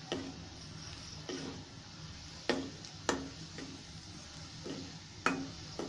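Steel ladle stirring garlic in a black kadai, clinking against the pan several times at irregular intervals, over a faint steady sizzle of garlic frying in oil.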